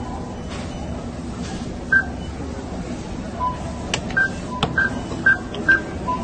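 ATM keypad beeping as keys are pressed: short electronic beeps at two pitches, one about two seconds in, then a quick run of about six in the second half. Two sharp clicks fall among them, over a steady low hum.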